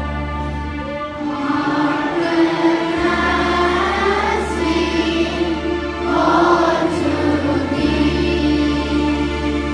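A congregation, many of them children, singing a liturgical hymn together over held instrumental chords; the voices come in about a second in.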